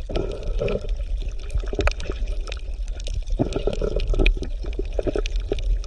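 Underwater water noise: a steady low rumble with irregular gurgling, bubbling blips.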